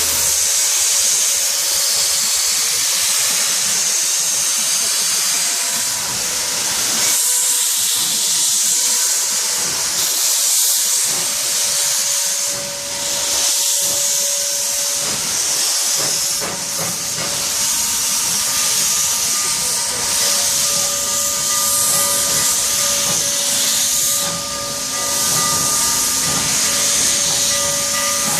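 Steam locomotives venting steam: a steady loud hiss, strongest in the high range, with a few faint steady tones beneath it.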